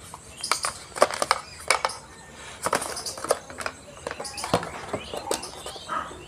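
Irregular clicks and crackles of a moulded packaging tray being handled as a neckband earphone and its cable are pulled out of it.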